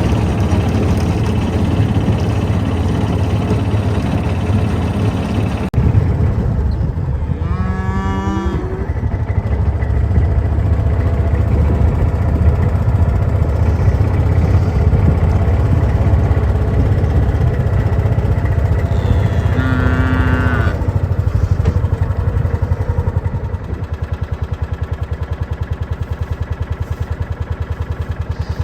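A Kubota M7060D tractor engine runs steadily while a cow moos twice, about eight seconds apart. Near the end the engine drops to a lower, evenly pulsing idle.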